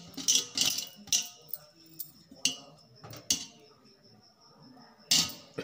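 Boiled potatoes and fingers knocking against a steel plate as the potatoes are peeled by hand: a string of sharp clicks and taps, the loudest about five seconds in, over a faint steady high whine.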